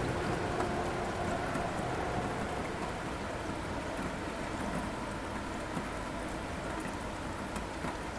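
Steady rain falling, with a low rumble of thunder underneath that eases off over the first few seconds.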